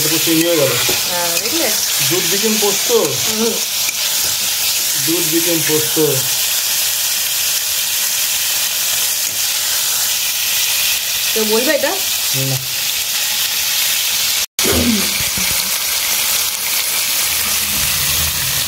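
Pointed gourd (potol) pieces cooking in milk and oil in a pan, sizzling steadily as the milk cooks down and thickens.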